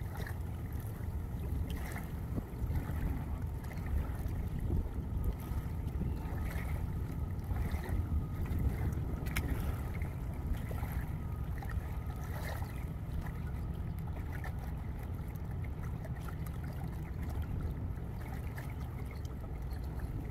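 Steady low rumble of wind buffeting the microphone and river water at the shoreline, with a few faint clicks.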